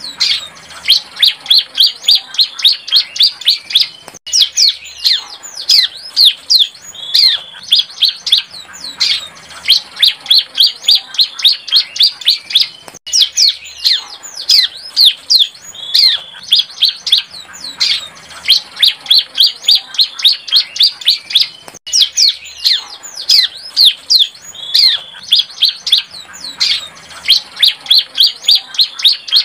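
A young bar-winged prinia (ciblek) singing: loud runs of sharp, high chirps, several a second, in bursts of a few seconds with short breaks. It is a still-developing juvenile song.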